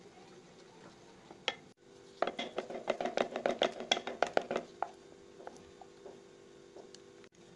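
Spatula stirring thick cake batter in a glass bowl: a quick run of light knocks and wet slaps against the glass, about six a second, lasting a couple of seconds in the middle, with a single knock just before.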